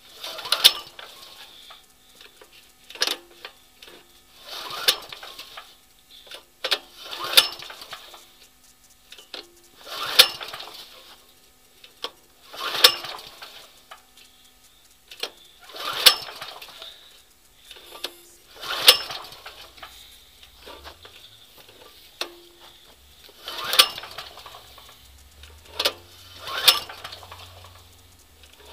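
Portable generator's recoil pull-starter being yanked about ten times, once every two to three seconds, each pull a brief rattling whir as the cold engine turns over without catching. It is a choked cold start in freezing weather.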